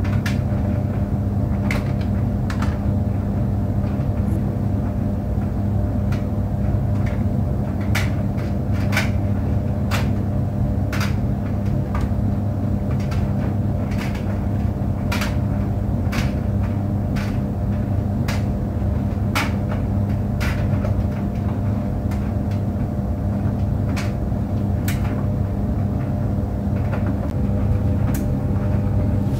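Tumble dryer running: a steady low hum from the motor and turning drum, with irregular sharp knocks about once a second as the drum turns.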